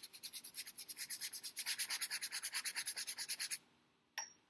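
Bristle brush scrubbing thinned oil paint onto stretched canvas in quick, even back-and-forth strokes, laying in a dark burnt-umber wash. The scrubbing stops about three and a half seconds in, and a single light tap follows shortly after.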